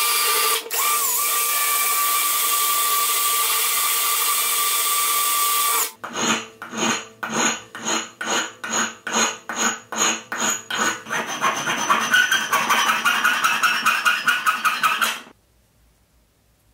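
Power drill running steadily as a makeshift lathe while sandpaper is held against the small part spinning in its chuck, the motor whine dipping briefly just under a second in. Then a hand file is stroked back and forth over a small part clamped in a bench vise, about two or three strokes a second at first and quicker after a few seconds, stopping abruptly near the end.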